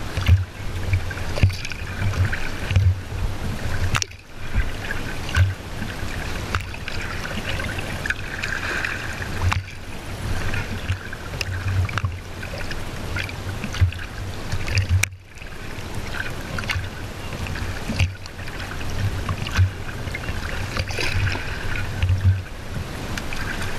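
Sea water splashing and lapping against the hull of a skin-on-frame kayak as it is paddled over choppy water, with gusts of wind buffeting the microphone.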